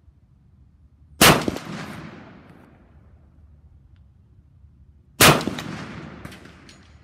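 Two single shots from a PSA KS-47, an AR-15-type rifle chambered in 7.62x39mm, about four seconds apart, each fading out in the echo of the covered firing line. A couple of light ticks follow the second shot.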